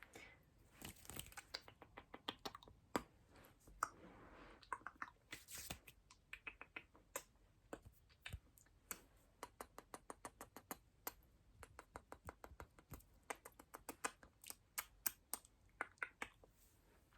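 Quiet, close-miked ASMR mouth sounds: a long run of short, wet clicks and smacks, several a second, thickest in the second half.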